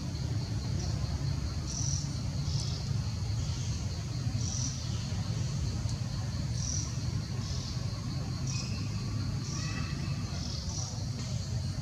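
Forest insects chirping in short high bursts, irregularly about once a second, over a steady low rumble. A few faint short whistles come in near the end.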